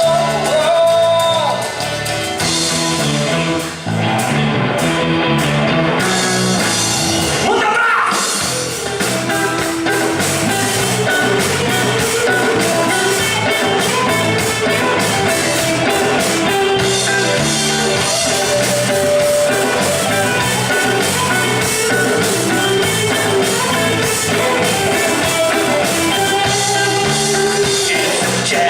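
Band music with singing, an upbeat Latin-rock song with guitar and drum kit. The upper sound thins out about four seconds in, and the full band comes back in about eight seconds in.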